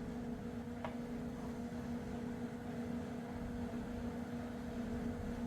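A steady electrical hum over a low background noise, with one faint click about a second in.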